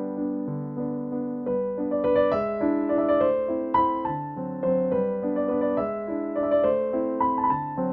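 Background music played on a soft electric piano, with gentle chords and a melody.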